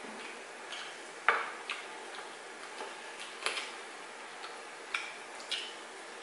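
Close-up eating sounds of fried chicken and rice eaten by hand: irregular sharp smacks and clicks from chewing mouths, about one or two a second, the loudest a little over a second in.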